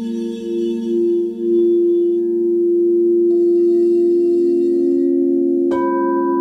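Crystal singing bowls ringing together in long, overlapping tones with a slow waver. Near the end one bowl is struck, adding a brighter, higher tone.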